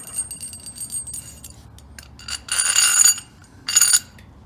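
Steel tool parts, an all-thread bolt and its washer, clinking and jingling with a bright metallic ring, loudest in two jingles about two and a half seconds in and near the end.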